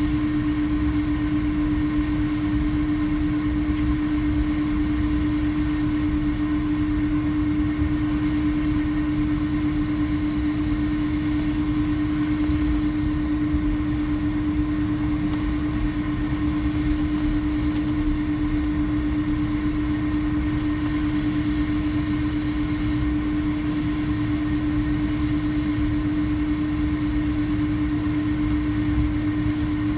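Jet airliner engines running steadily at low power: a constant hum with a steady low rumble beneath, unchanging throughout.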